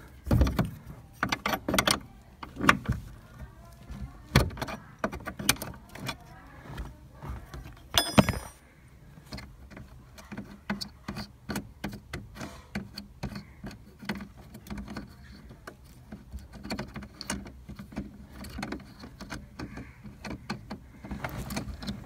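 Irregular plastic clicks, taps and rustling from unplugging a Hyundai i10's brake light switch connector and working the switch out of its mount above the brake pedal, with a few sharper clicks early on and about eight seconds in.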